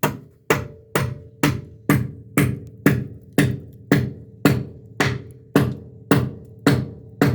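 Hammer striking steadily, about two blows a second, each blow with a short ringing tone, typical of nailing deck framing timber.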